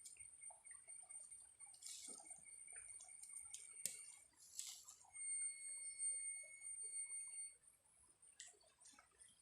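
Faint outdoor ambience: a steady high-pitched insect drone with scattered small clicks, ticks and brief rustles.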